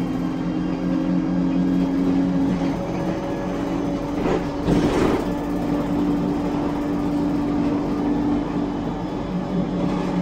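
ADL Enviro 200 bus heard from inside the cabin while under way: its engine and unusually loud Voith automatic gearbox give a steady whine made of several tones, which shifts slightly about a quarter of the way in. A brief rush of noise comes about halfway.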